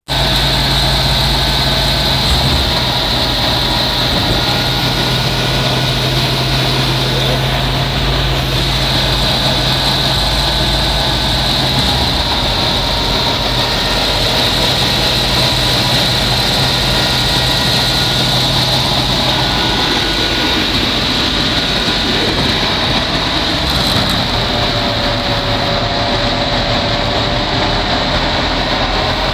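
Belt-driven stationary wheat thresher running steadily, a loud continuous mechanical drone, while wheat is threshed through it.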